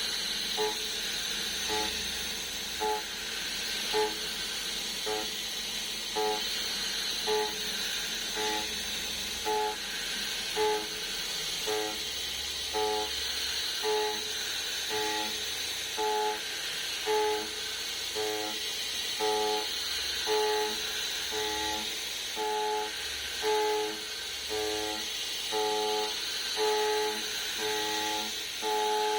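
CNC end mill cutting 303 stainless steel in repeated passes. Each time the cutter engages it gives a short pitched whine, about once a second, and the whines grow longer toward the end, over a steady hiss.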